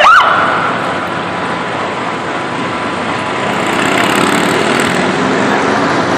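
A police siren's fast yelp cuts off just at the start, followed by steady street and traffic noise with the engines of approaching police motorcycles, growing a little louder toward the end.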